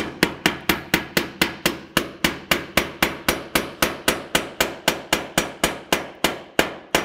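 Hammer tapping a nail through aluminum fascia into the subfascia, with quick even strikes at about four a second. The nail is driven carefully so the head just meets the metal without denting the fascia.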